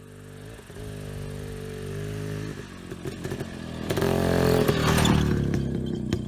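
IZh Planeta 5 motorcycle's single-cylinder two-stroke engine running, revs rising about four seconds in.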